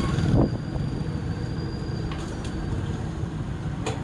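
Motorcycle engine running steadily in street traffic, a low rumble.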